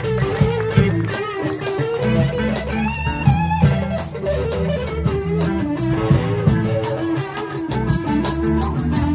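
Live band: a Les Paul-style electric guitar plays a lead solo with string bends, backed by drums and the rest of the band.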